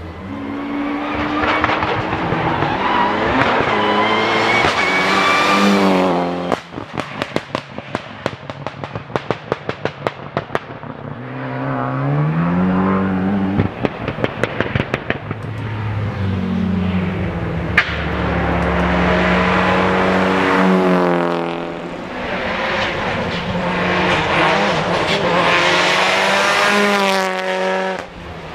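Rally car engine accelerating hard, its pitch climbing through the gears. It then lifts off with a long run of rapid exhaust pops and crackles, and accelerates hard again, with some tyre squeal.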